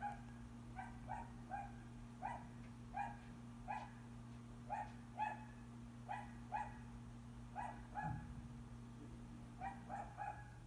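A dog yapping faintly: short, sharp yaps, often two in quick succession, every half second to a second, over a steady low hum.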